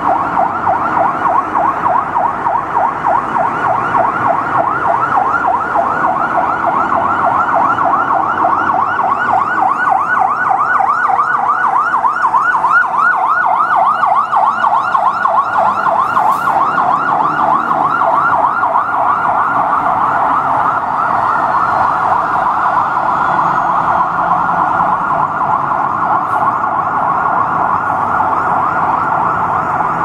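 Fire engine siren sounding continuously in a fast yelp, its pitch rising and falling several times a second, settling into a smoother, steadier tone in the second half.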